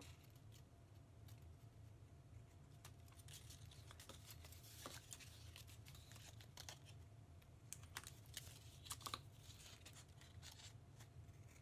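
Scissors snipping through paper in faint, scattered cuts, with paper rustling as the strips are handled; a few sharper snips come together about eight to nine seconds in.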